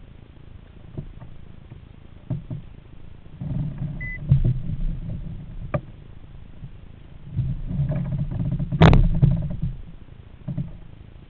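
Bumping, rustling and scattered clicks of a caught fish being handled aboard a plastic kayak, with two spells of low rumbling scuffing and one sharp, loud knock a little before the end.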